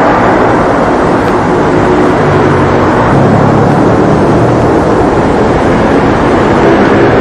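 Loud, steady motorcycle-like engine drone with a wavering pitch, from a recording made in the ground, which the recordists take for a motorcycle running in a tunnel underground.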